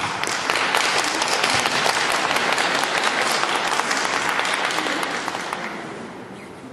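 Audience applause, many hands clapping, which holds steady for several seconds and then fades away over the last two seconds.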